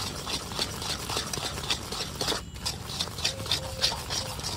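Metal spatula scraping and beating thickening sugar syrup against the sides of a metal kadhai in quick, regular strokes, a few a second. The syrup is crystallising into bhurra (dry granulated sugar).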